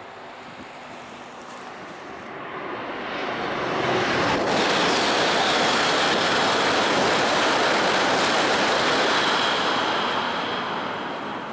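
Tohoku Shinkansen train (red E6 cars coupled to an E5) passing at speed: a rushing noise that swells over about two seconds, holds, then fades near the end as the train runs away. A faint high whine rides over it while it is loudest.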